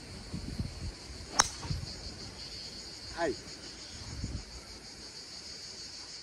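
Driver striking a golf ball off the tee: one sharp crack about a second and a half in. Insects chirr steadily throughout, and a short falling tone comes about three seconds in.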